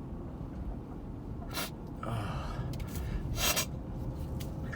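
A person's two short, sharp gasping breaths, about a second and a half and three and a half seconds in, during an allergic sneezing fit that he blames on hyacinth pollen.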